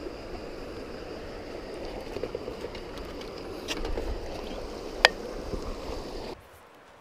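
Steady rush of river water, with a few sharp clicks, the loudest about five seconds in; it stops suddenly near the end.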